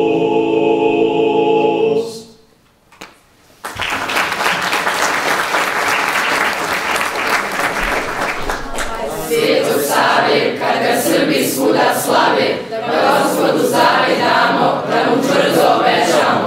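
A small male a cappella vocal ensemble holds a final chord, which cuts off about two seconds in. After a short pause, audience applause follows. From about nine seconds in, a choir sings.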